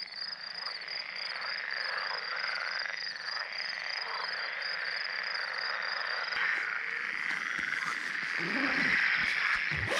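A chorus of frogs croaking from a pond, with a high, regularly pulsing chirp over it until about six seconds in. Near the end come rustles and a few short knocks from a backpack being handled.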